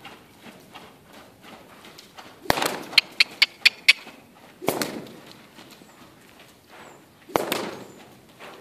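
Horse moving loose on sand footing, its hoofbeats faint and soft. Three loud, sudden sounds break in: about two and a half seconds in, near the middle and near the end. Just after the first comes a quick run of five sharp clicks.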